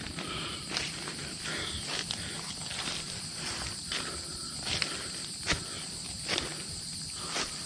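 Hikers' footsteps on a forest trail: irregular steps and rustles of leaf litter and brush, over a steady high insect drone.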